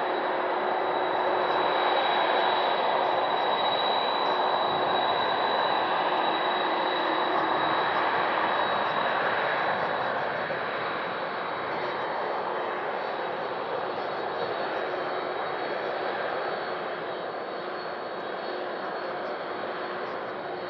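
Four jet engines of a Boeing 747 freighter at taxi power as it rolls past: a steady rushing noise with a thin, high, steady whine and a lower hum in it, easing off a little from about halfway through.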